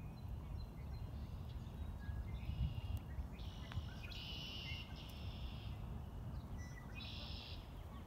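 Common grackle song: a few harsh, grating squeaks, each under a second long, starting about halfway through and one more near the end, over a low steady rumble.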